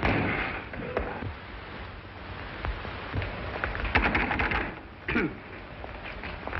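Slapstick commotion on an old film soundtrack: scattered knocks and clatter, with a dense burst of clattering about four seconds in and a short falling sound just after.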